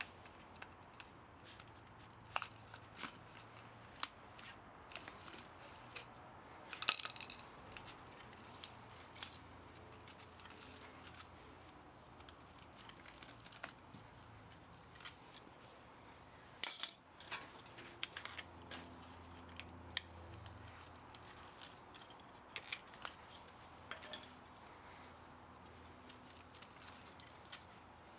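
Irregular sharp clicks and snips of hand tools on metal, a few louder snaps among them, as an electric pump motor is taken apart for its copper and aluminium.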